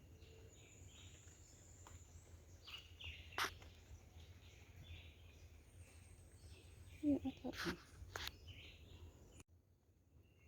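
Faint outdoor ambience with birds chirping on and off and a thin, high, steady insect-like tone. There is a sharp click about three seconds in, a brief low sound with a few knocks around seven seconds in, and the sound cuts out almost completely in the last second.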